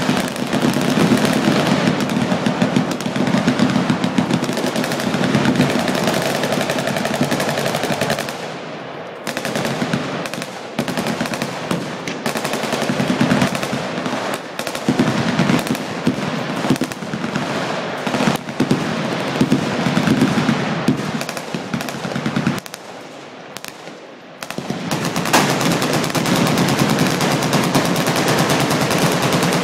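Many machine guns firing at once along a firing line, a dense continuous roar of overlapping bursts. The firing thins out briefly twice, about eight seconds in and again past twenty seconds, then builds back to full volume.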